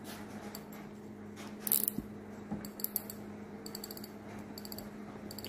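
Spinning reel's drag clicker ratcheting as the spool is turned by hand: several short runs of rapid, fine metallic clicks with pauses between them.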